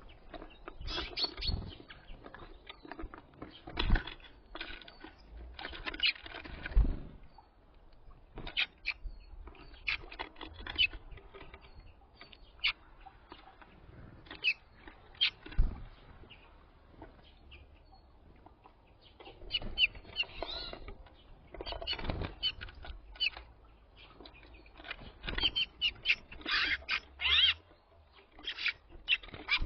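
Small songbirds feeding at a bird feeder: irregular pecking and scrabbling clicks, dull thumps as they land, and short high chirps, busier near the end.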